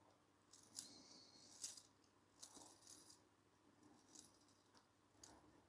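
Faint metallic clicks and brief light rattling from the brass movement of an Ansonia eight-day striking clock as it is handled, scattered over the few seconds with a couple of short scrapes among them.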